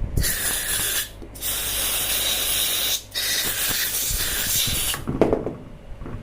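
Aerosol spray polish hissing out of a can in three long bursts of one to two seconds each, sprayed into the ports of a motorcycle ABS modulator as a lubricant to free a jammed internal valve. A short knock follows about five seconds in.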